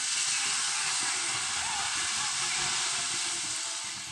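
Dirt-track race cars running at speed as the pack passes the grandstand: a steady, noisy wash of engine sound, with faint spectator voices.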